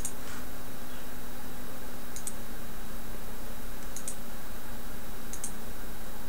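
Faint clicks of a computer mouse, four in all, each a quick double tick, spaced about one and a half to two seconds apart, over a steady hiss and a low hum.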